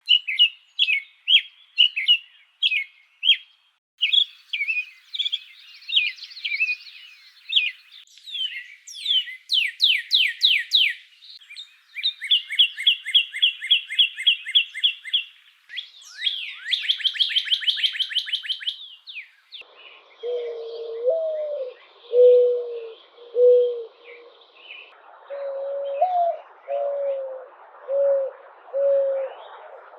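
Songs and calls of several different wild birds heard one after another as short separate clips: rapid chirps, a warbling song, fast falling whistled sweeps, a steady trill, then in the last ten seconds slow, low whistled phrases of a few notes each, repeated.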